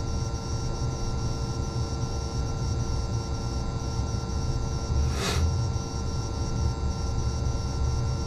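Mercedes-Benz Actros truck's diesel engine idling, heard inside the cab: a steady low rumble under a steady hum, with a brief hiss about five seconds in.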